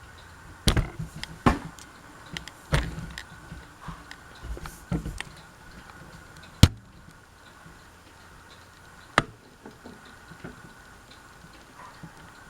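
Irregular knocks and clicks as the ceiling fan is handled, with two sharp clicks, about six and a half and about nine seconds in.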